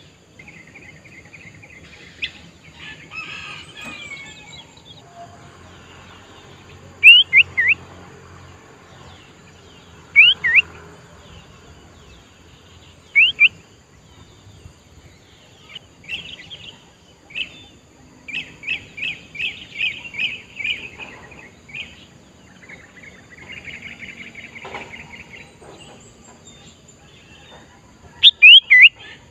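Sooty-headed bulbul calling: short, sharp whistled notes that drop quickly in pitch, coming in twos and threes, with a fast run of repeated notes midway and softer chattering between them.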